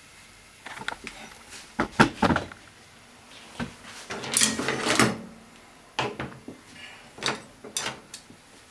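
Kitchen utensils handled on a worktop: a string of knocks and clatters, loudest about two seconds in, with a longer rattling clatter around four to five seconds in and a few more knocks near the end.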